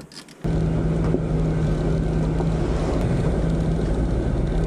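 Off-road 4x4's engine running under way on a dirt track, a steady drone with road noise, starting abruptly about half a second in.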